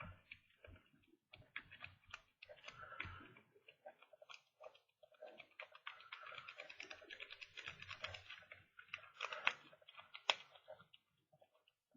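Lock pick and tension wrench working inside a Master Lock No. 140 padlock's pin-tumbler keyway: a faint, irregular run of small clicks and scraping as the pick rakes and jiggles the pins, with one sharper click about ten seconds in.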